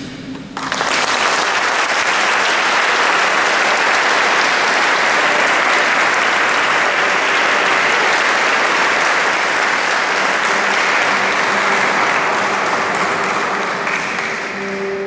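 The choir's last sung note ends about half a second in, and the audience breaks into applause, which holds steady and then tapers off near the end.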